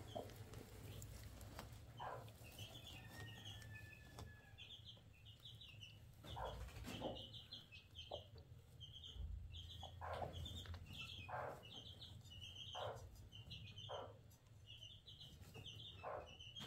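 Broody hen softly clucking on her eggs, a short low cluck every second or two. Quick, high-pitched bird chirps come in little clusters throughout.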